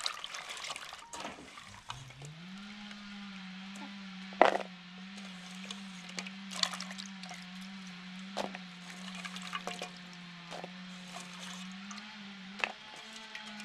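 Hands swishing and rinsing tamarind in water in a metal basin, with splashing and a few sharp knocks against the bowl. A steady low hum comes in about two seconds in and holds under it.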